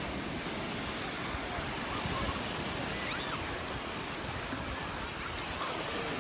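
Small Gulf of Mexico waves washing onto the beach in a steady surf hiss, with wind buffeting the microphone. A few faint, short wavering calls or voices sound in the distance.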